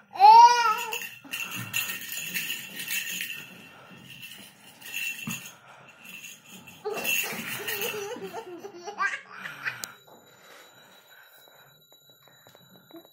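Toddler laughing: a loud, high-pitched squeal of laughter that rises and falls in pitch about half a second in, then more bursts of laughter on and off until about nine seconds in.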